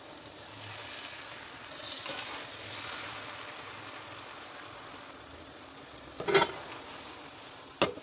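Cooked sweet rice (zarda) being stirred and turned in an aluminium pot: a soft rustling hiss that swells and fades over the first few seconds. Two sharp knocks follow, one about six seconds in and another near the end.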